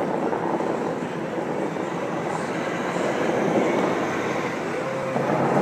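Steady rushing of the Bellagio fountain's water jets spraying high into the air, growing louder near the end.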